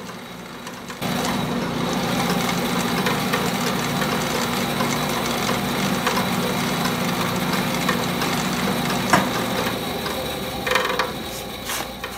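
Bandsaw with a freshly changed blade ripping through a rough-sawn black locust board: the cut bites about a second in and runs as a steady hum with a dense rasp, and two sharp knocks come near the end.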